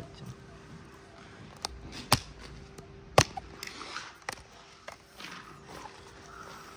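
Scattered sharp clicks and knocks, the loudest two about two and three seconds in, over a faint steady hum: handling noise from a camera or phone being set in place for a shot.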